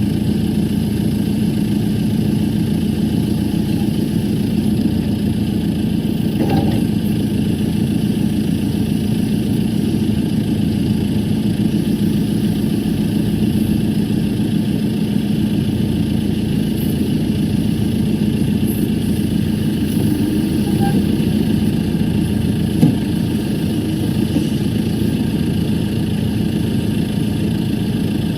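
A 2013 JCB backhoe's diesel engine idling steadily, with one sharp knock about twenty-three seconds in.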